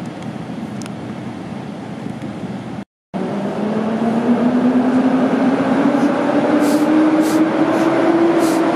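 EU07 electric locomotive hauling a container train as it runs in: a steady rumble, then after a brief dropout about three seconds in, louder, with a whine that slowly rises in pitch.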